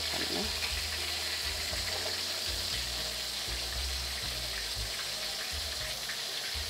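Hot oil sizzling in a steady hiss around a whole sea bream shallow-frying in an iron wok.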